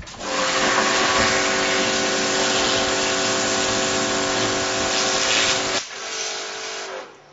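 Pressure washer blasting a high-pressure water jet against a stone column: a loud, steady hiss with a steady hum beneath it. It becomes much quieter near the end.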